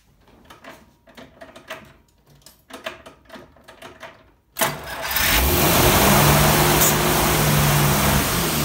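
Prewar Chrysler engine starting about halfway through after a few faint ticks, then running loud at a steady high speed because the throttle was left a quarter open instead of closed. The sound begins to ease off near the end.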